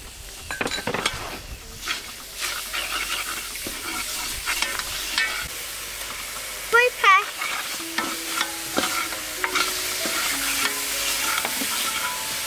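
Curry paste sizzling as it fries in an aluminium pot, with a metal ladle stirring and scraping against the pot. About seven seconds in, a short animal call sounds twice.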